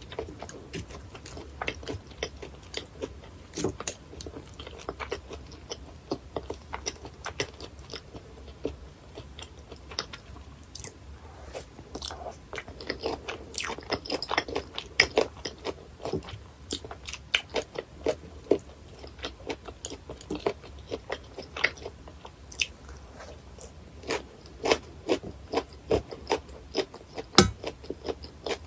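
Close-miked chewing and biting of bone-in sliced gizzard shad sashimi, with many sharp, irregular crunching clicks several times a second.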